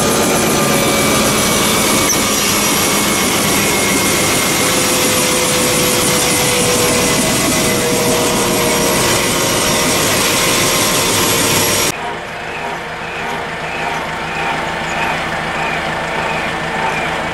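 Loud, steady engine and road noise inside a moving vehicle, cutting off abruptly about twelve seconds in to a quieter steady engine hum with a faint chirp repeating about twice a second.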